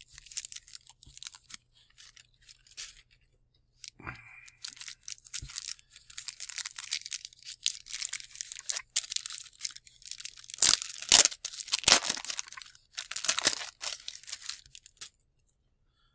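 Wrapper of a 1990 Score hockey card pack being crinkled and torn open by hand: a run of crackling rustles and sharp tearing snaps, loudest about ten to twelve seconds in.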